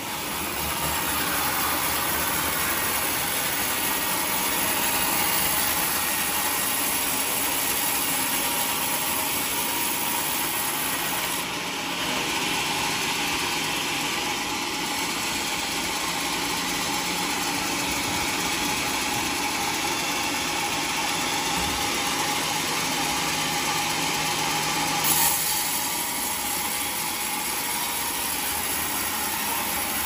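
Band sawmill running steadily, its blade ripping lengthwise through a squared teak log.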